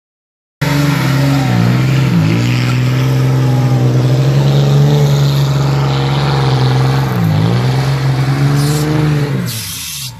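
A truck engine revving hard, held at high revs during a mud drift. Its pitch dips briefly twice around one and a half to two seconds in and once around seven seconds, then falls away near the end.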